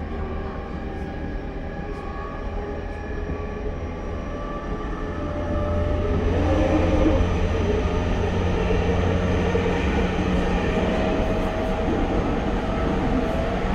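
Running sound inside a JR East E231 series 1000 motor car, a commuter electric train with Hitachi IGBT-VVVF traction control: wheels rumbling on the rail and the traction equipment holding several steady tones. It gets louder about six seconds in.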